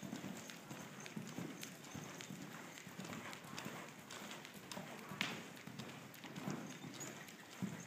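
A horse's hoofbeats, repeated low thuds, with one sharp click about five seconds in.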